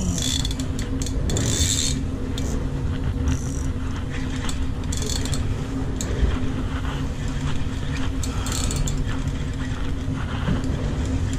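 Fishing reel being cranked by hand, its gears whirring and clicking unevenly as line is wound in, over a steady low machinery hum.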